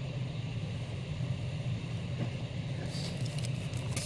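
Steady low hum of room background noise. Near the end comes a faint rustle of paper comics being lifted out of a cardboard shipping box.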